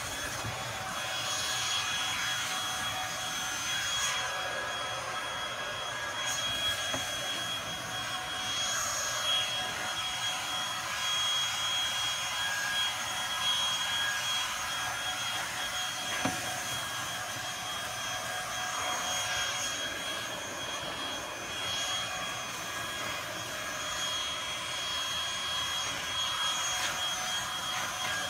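Electric blower running steadily with a high whine over a rushing hiss, blowing dust out of a pickup truck's cab.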